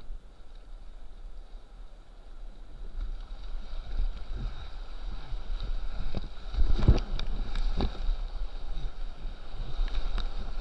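Whitewater rushing around a kayak as it runs a rapid, with paddle strokes and waves splashing against the boat. The water noise builds from about a third of the way in, with several sharp splashes in the second half.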